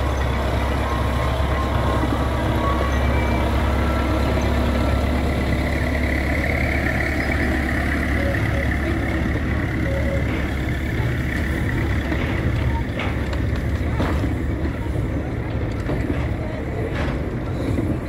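Small narrow-gauge diesel locomotive's engine running steadily as it hauls a short train of goods wagons slowly past, with sharp clicks of the wagon wheels over the rail joints in the last few seconds.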